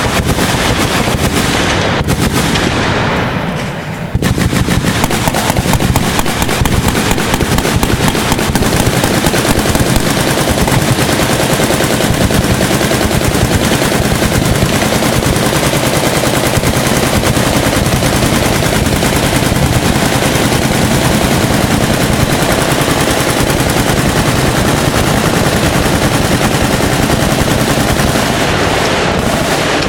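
Machine guns firing continuously in dense automatic fire, many shots overlapping with no real pause, easing briefly about three seconds in before picking up again.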